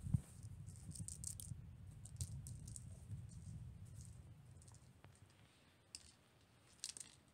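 Faint scratching and clicking of a cat's claws and paws on a woven rug as it rolls about playing with a small ball toy, over a low rumble that fades out about four seconds in; a few sharper scratches come near the end.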